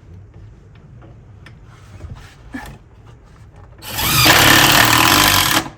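Power drill driving a screw up into a dry wooden board. It runs for about two seconds near the end and stops abruptly, after a few light clicks from handling the screw and bracket.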